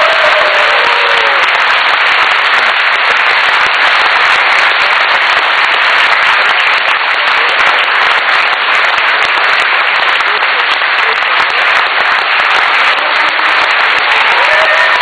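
Crowd applauding loudly, a dense steady clapping with some cheering.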